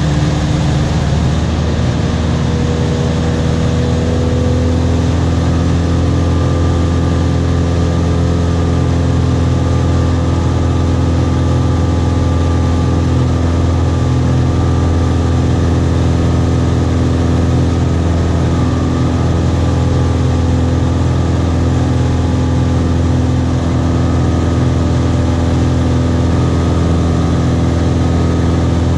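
High-wing light aircraft's engine and propeller droning steadily, heard from inside the cabin.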